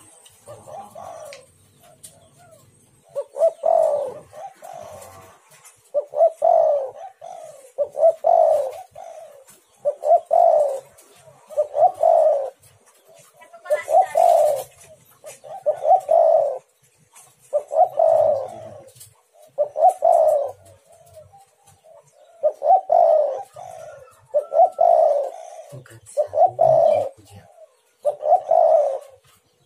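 Spotted dove (tekukur) singing its cooing song, a phrase of several low coo notes repeated about every two seconds. A brief hiss cuts in about halfway.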